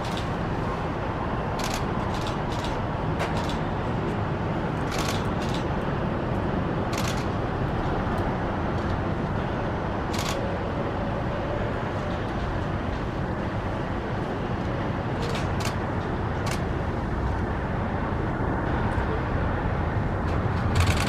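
Steady rumble of a jet airliner's engines, growing a little louder near the end. A few short, high ticks sound over it.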